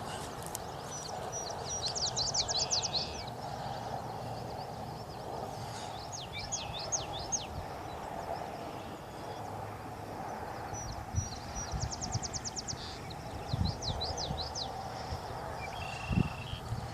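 A songbird singing the same short phrase every few seconds, a quick high trill followed by a few sweeping notes, over a steady outdoor background noise. A few dull low knocks come near the end.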